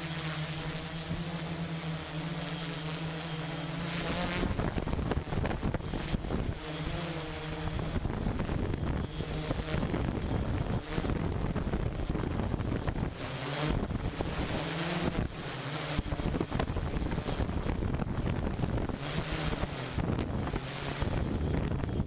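A machine engine running steadily with an even hum. About four seconds in, it gives way to a rougher, uneven rumble with wind on the microphone, and the engine hum returns now and then.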